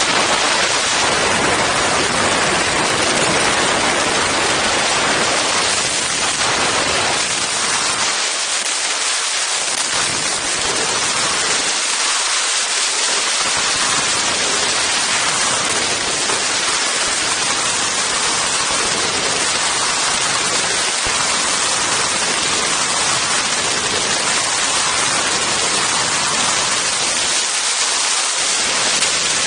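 Freefall wind rushing over a helmet-mounted camera's microphone: a steady, loud rush of noise with no let-up.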